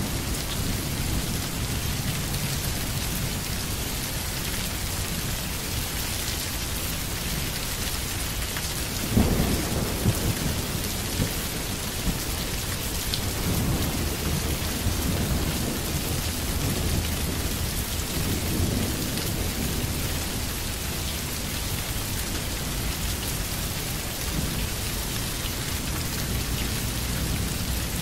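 Steady rain with low rolling thunder, swelling to a louder rumble about nine seconds in.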